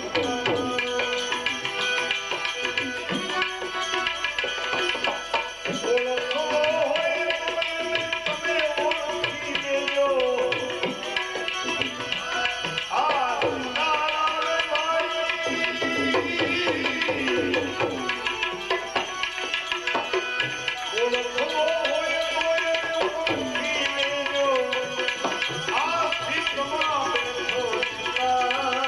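Bhajan devotional music: tabla playing a steady rhythm under a wavering, gliding melody line.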